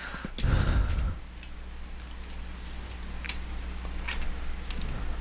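Hands handling the plastic case of an MSX turbo R computer: a dull thump about half a second in, then a few light clicks and taps, over a steady low hum.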